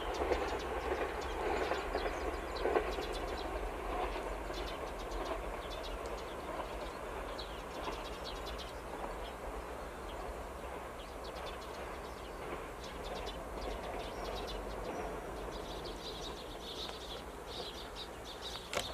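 Rumble of a Tango no Umi diesel limited express train, loudest at the start and fading steadily as the train draws away. Birds chirp over it, more often near the end.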